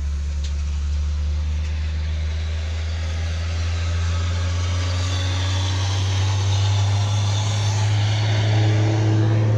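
Surface drill rig's engine running steadily with a deep drone, its pitch rising slightly in the last couple of seconds.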